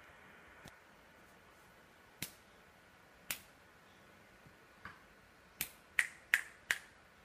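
Finger snapping: a series of sharp single snaps, spaced out at first, then four in quick succession near the end.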